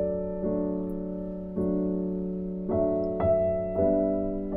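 Background piano music: slow, sustained chords, a new one struck about once a second.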